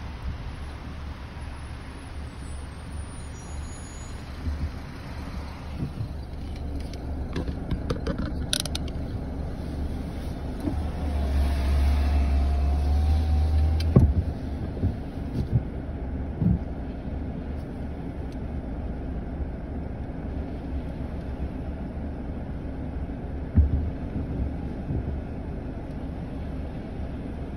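Car cabin noise on a slushy, icy road: a steady low rumble of engine and tyres that grows heavier about eleven seconds in. After about fourteen seconds it settles to a quieter steady hum while the car waits at a red light. A few short knocks and clicks come from inside the car.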